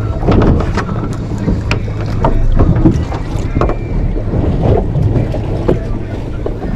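Wind buffeting the microphone on a small fishing boat over a steady low hum, with water slapping against the hull in irregular knocks and splashes.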